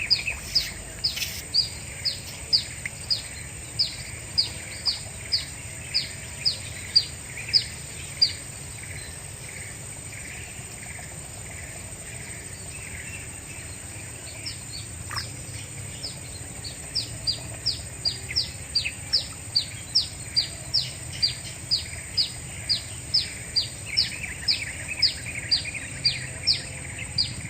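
A bird calling outdoors, repeating one short high note about twice a second; it stops about eight seconds in and starts again some six seconds later, over a steady high insect-like hiss.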